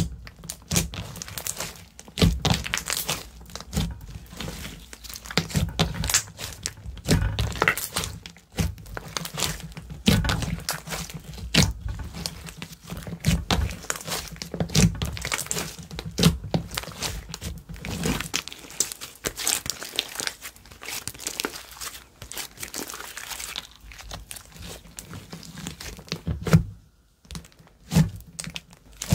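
Hands kneading, pressing and stretching glossy slime, making a fast, irregular run of sticky clicks, pops and squelches, with a brief pause near the end.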